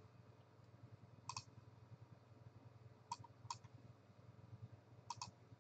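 Faint computer mouse clicks, about five spread out with the last two close together, over a low steady hum.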